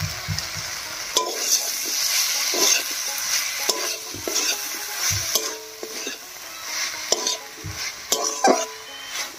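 Shredded cabbage and vegetable filling sizzling in a metal karahi. A spatula stirs and tosses it, with repeated scrapes and clicks against the pan starting about a second in.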